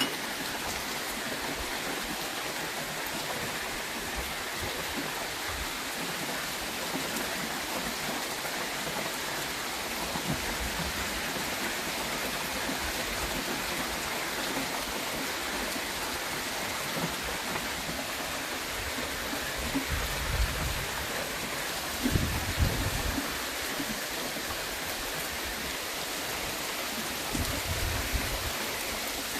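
Steady rain shower falling, an even hiss throughout. A few low rumbles swell up about two-thirds of the way through and again near the end.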